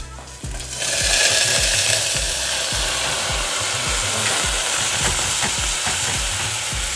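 Washed rice tipped into hot oil in a pot, starting to sizzle loudly about a second in and frying steadily as it is stirred: the rice toasting in the oil.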